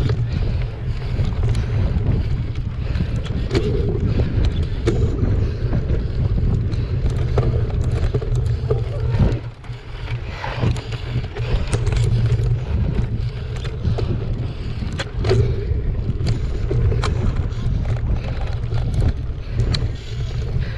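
Wind buffeting a bike-mounted camera's microphone over the rattle and sharp clicking knocks of a mountain bike ridden over a dry, rough dirt trail. There is a brief lull about nine and a half seconds in.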